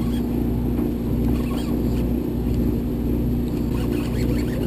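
Party boat's engine running with a steady low drone.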